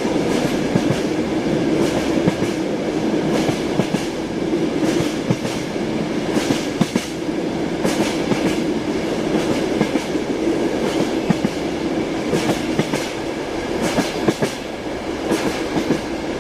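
Train wheels clacking over rail joints, over a steady rumble of a train in motion, with frequent irregular knocks.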